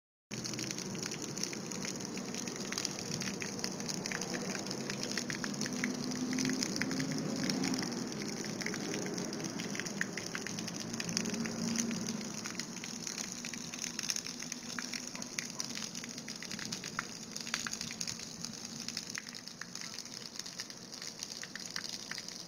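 Jet of water from a small 12-volt DC brew pump spattering onto pavement: a steady, crackling patter like rain.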